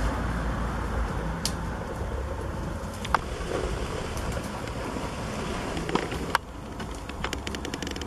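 Steady muffled rumble of wind buffeting a windproofed camera microphone, broken by a few sharp clicks and snaps. The rumble drops off suddenly about six and a half seconds in.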